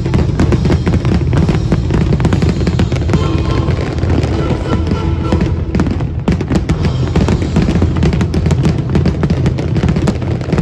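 Aerial fireworks shells bursting in a rapid, continuous string of bangs and crackles, with music playing alongside.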